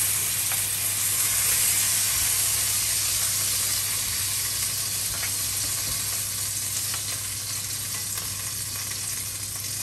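Slices of pork liver sizzling in hot oil in a frying pan: a steady frying hiss that slowly grows fainter.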